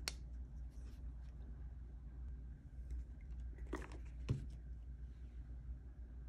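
Small handling sounds of a black plastic craft tool over a low steady hum: a sharp click at the start, then a brief rustle and a light knock about four seconds in as it is set down.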